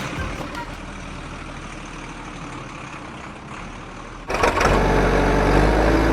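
Cartoon truck engine running steadily as the vehicles drive off, then a louder sound comes in abruptly about four seconds in.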